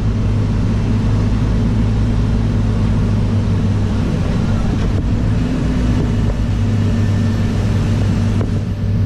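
A New Holland TM150 tractor and a CLAAS Lexion combine harvester running side by side, a steady low drone, while the combine's unloading auger empties barley into the tractor's trailer.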